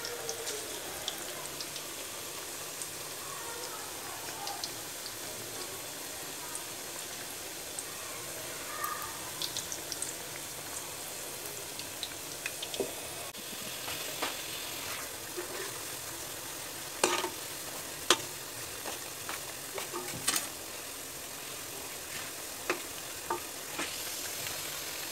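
Pakoras deep-frying in hot oil, a steady sizzle with scattered sharp clicks and pops. A few louder clicks come about two-thirds of the way in.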